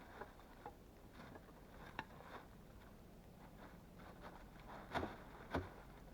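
Faint rustling and scattered soft knocks of wood being handled, with two louder knocks about five seconds in, half a second apart.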